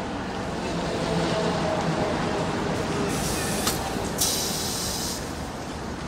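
Gas flame burning with a steady rushing rumble, with two loud bursts of hissing gas about three and four seconds in as the green flame grows.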